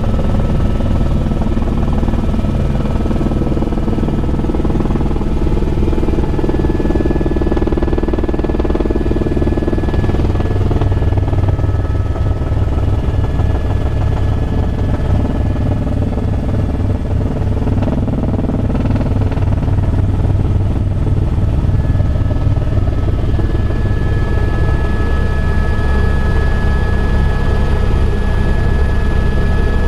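Helicopter in cruise flight: a steady, loud rotor beat with engine noise and a thin high whine that comes in at times.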